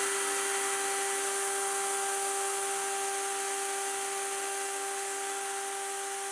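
Handheld router motor, the cutter of a homemade copy lathe, running at a steady high whine that holds one constant pitch.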